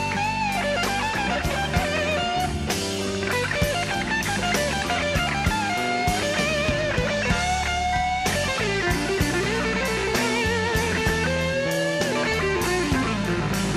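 Background rock music: an electric guitar solo with bent, wavering notes over bass and drums.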